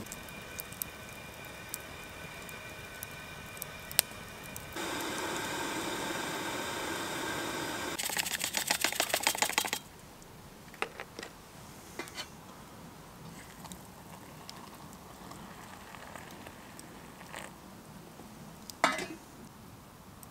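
Instant hot chocolate being made in an enamel mug: a steady pour for about three seconds, then a spoon stirring briskly with about seven quick clinks a second. After that, a campfire crackles with scattered pops, and there is one sharper snap near the end.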